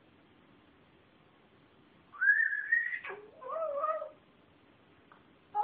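A pet vocalizing as if complaining. About two seconds in comes a high, thin call that rises in pitch and then drops sharply, followed by a lower wavering call. Another call begins right at the end.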